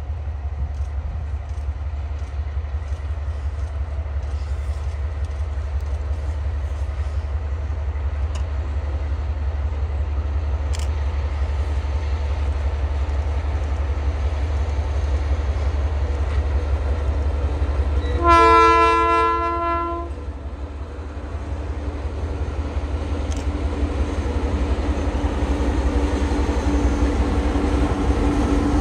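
Pair of diesel locomotives approaching, their low engine rumble growing louder as they near. About two-thirds of the way through, the lead locomotive's horn sounds one blast of about two seconds.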